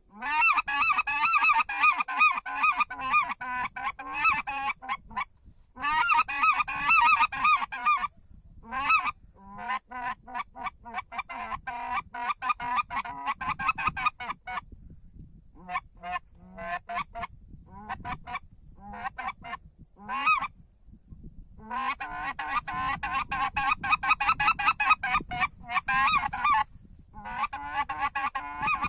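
Acrylic goose call with an acrylic insert, blown in fast runs of short honks and clucks, with brief pauses between the runs.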